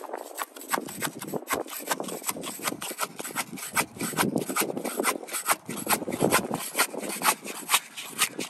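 Quick, uneven scraping strokes, several a second: old roof sealant being scraped off the RV roof around the opening left by the removed rooftop AC unit.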